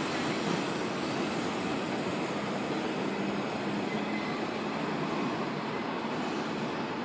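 R160B subway train running along elevated track: a steady rumble of wheels on the rails, heard from aboard the moving train.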